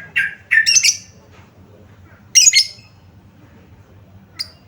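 Lovebird calling in short, shrill chirps: a quick string in the first second, another burst about two and a half seconds in, and a single chirp near the end. It is a lure call, played to make other lovebirds answer.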